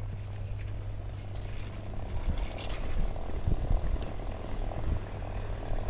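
Wind buffeting the microphone of a camera riding on a moving bicycle, heard as a low rumble over the hiss of tyres rolling on asphalt. The rumble swells in gusts from about a third of the way in and is loudest around the middle.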